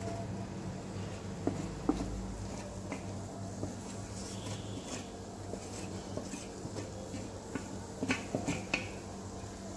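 Gram flour poured from a steel plate into hot ghee in a pan, with a faint sizzle of the bubbling ghee. A few light clinks of the metal plate against the pan, with a quick cluster of them about eight seconds in.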